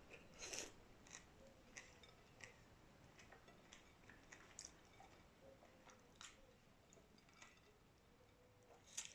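Faint, wet chewing and small mouth clicks from someone eating boiled shrimp and rice, in soft irregular ticks about every half second, with a sharper click near the end.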